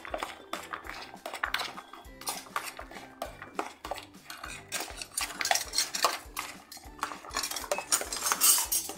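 Metal spoon stirring a chopped onion and green chilli mixture in a plastic bowl, with repeated irregular scrapes and clicks of the spoon against the bowl. It is loudest near the end.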